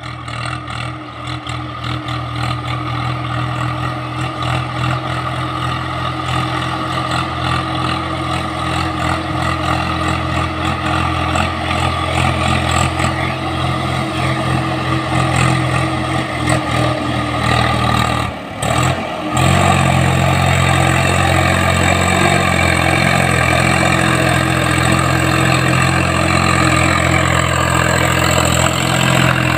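Swaraj 744 XT tractor's three-cylinder diesel engine running steadily under load while hauling a fully loaded double-deck trolley, growing louder as it approaches. The sound cuts out for about a second roughly two-thirds of the way in, then comes back louder.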